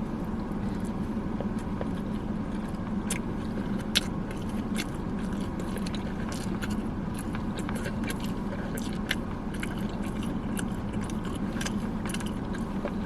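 Close-up eating sounds: biting and chewing chicken wings, with scattered sharp mouth clicks and smacks, the sharpest about four seconds in. A steady low hum inside the car runs underneath.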